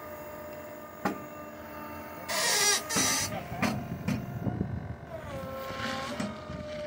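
Battery-powered Sherpa 100ECO mini skid steer's electric motor and hydraulics whining steadily while its arm lifts a concrete block held by a vacuum lifter. A sharp click comes about a second in, a loud burst of hiss around two and a half seconds in, and the whine drops in pitch near the end.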